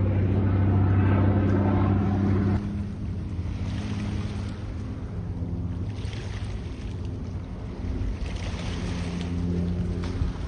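Seaplane's propeller engine droning steadily, loud at first, then dropping sharply about two and a half seconds in to a fainter drone. Wind buffets the microphone, with water lapping underneath.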